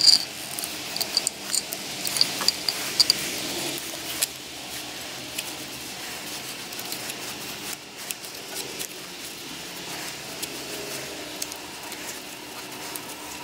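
Hands coiling a thin tachometer pickup wire around a rubber spark plug lead: light rubbing and small clicks of wire being handled. A sharp click comes at the very start, then a run of small ticks in the first three seconds.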